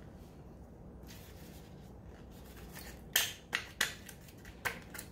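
Thin plastic candy-kit molds being flexed and tapped to release the set no-bake donuts. A handful of sharp plastic clicks and taps starting about three seconds in.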